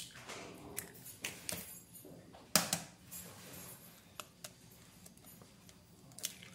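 Eggs being cracked by hand over a bowl of dry cake mix: a string of short, sharp taps and shell cracks, the loudest about two and a half seconds in, with lighter clicks of shell being pulled apart in between.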